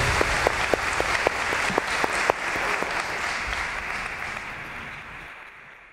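Audience applauding, the clapping dying away over several seconds.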